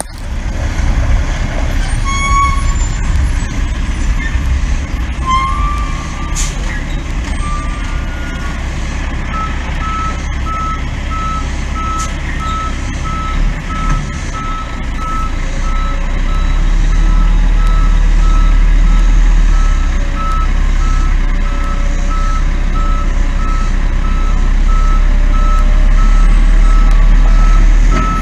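Gravel delivery truck's diesel engine running heavily while its reversing alarm beeps steadily and repeatedly as it backs up. The engine grows louder about halfway through.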